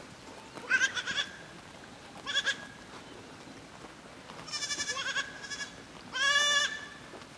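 Young goat kids bleating: four high-pitched bleats, the third quavering and broken into pulses, the last the loudest.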